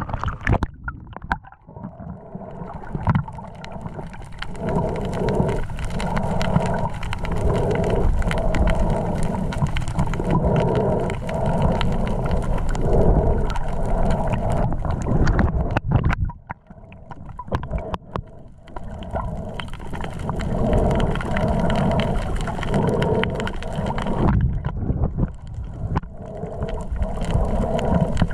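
Muffled rush and gurgle of water around an action camera carried underwater by a swimming diver, pulsing about once a second; it drops quieter for a couple of seconds past the middle.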